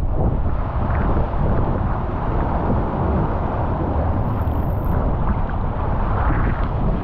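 A rider sliding around the wet bowl of a funnel water slide: a steady rushing wash of water over the slide surface, mixed with wind buffeting the microphone.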